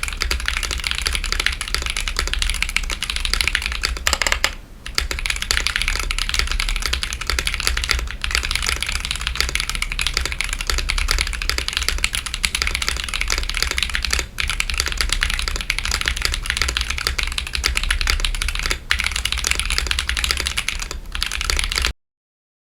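Steady, fast typing on a mechanical keyboard with stock, unlubed Akko CS Lavender Purple tactile switches in a wooden 60% case with a carbon fibre plate and PBT Cherry-profile keycaps. It breaks off briefly a few times and stops abruptly near the end.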